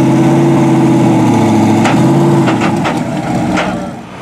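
SSC Ultimate Aero's V8 running at a steady engine note. A few sharp knocks come between about two and three and a half seconds in, and the sound fades near the end.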